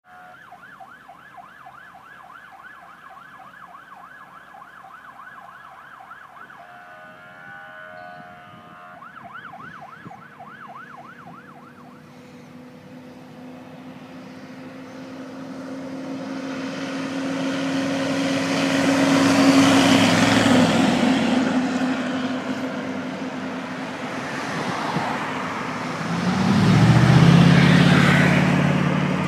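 A siren wails in quick up-and-down sweeps, switches briefly to a stepped two-tone pattern, then returns to the sweeps and stops. Then an old GMC fire truck passes close, its engine and tyres growing loud and fading. Near the end a pickup truck's engine passes close.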